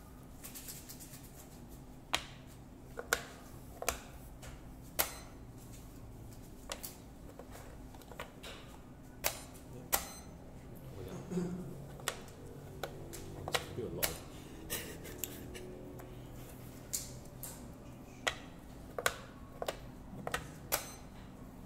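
Othello discs clicking as they are set down and flipped on a plastic board, mixed with presses of a game clock's buttons: about twenty sharp, irregular clicks.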